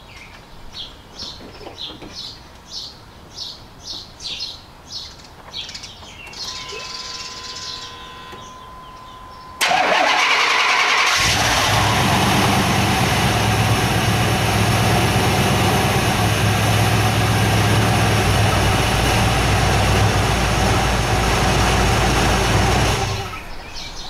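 A 1989 Chevy K5 Blazer's throttle-body-injected V8 cranks about ten seconds in, catches after a second or two of cranking and then runs steadily until near the end. It is a good start on a new battery with proper voltage, ending a crank-no-start. A steady tone sounds for about three seconds before the cranking.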